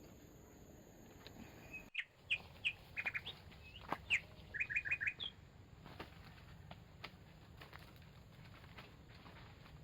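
A bird calling: a quick run of sharp chirps and short falling whistles starting about two seconds in and lasting about three seconds, over a faint steady background.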